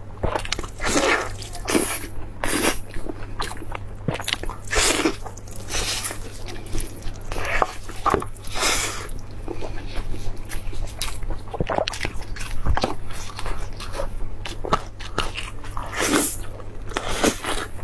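A person biting and chewing food close to the microphone, with irregular wet, crunchy bites and chews every second or so.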